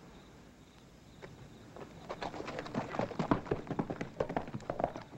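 Horse hooves clopping on a dirt yard as a ridden horse walks off, irregular clops several a second. They start faintly about a second in and grow louder.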